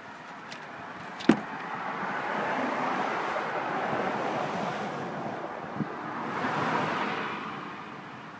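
Vehicles passing by, their noise swelling up and fading twice, with a sharp click a little over a second in.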